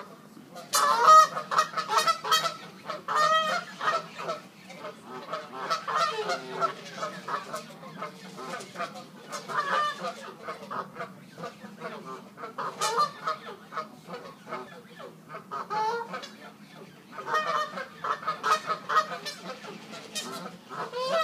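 Geese honking loudly and over and over in noisy bouts, the loudest about a second in: two groups of geese squabbling in a territorial dispute.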